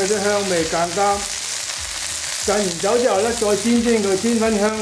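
Tilapia fillets frying in oil in a stainless steel pan: a steady high sizzle, with a man's voice talking over it for much of the time.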